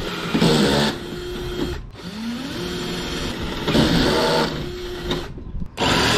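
Cordless drill boring a pilot hole through a wooden board for a jigsaw cut. The motor whines up in pitch to a steady speed, gets louder and rougher as the bit cuts into the wood, and stops about two seconds in. Then it spins up and bores again, stopping near the end.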